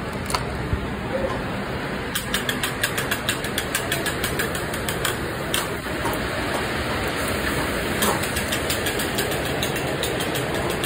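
Steady rushing drone of a commercial kitchen's exhaust hood fan, with runs of quick clicks and taps about two seconds in and again near the end.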